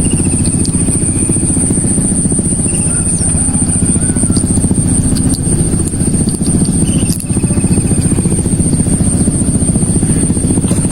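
A small engine running steadily, with a constant high whine above it.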